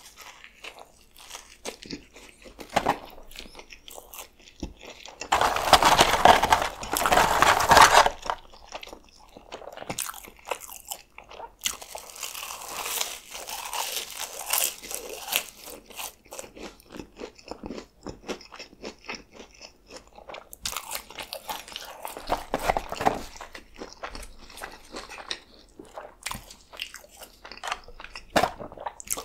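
Close-miked eating: bites into a McDonald's Filet-O-Fish sandwich and chewing of it and of fries, with crunching, loudest in a stretch about five to eight seconds in.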